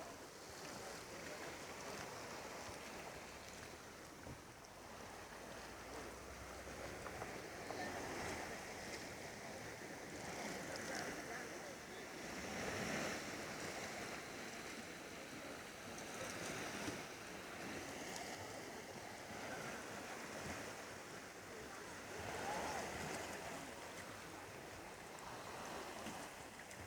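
Waves of the Caspian Sea washing onto the shore, a steady wash of surf that swells and eases every few seconds as each wave breaks.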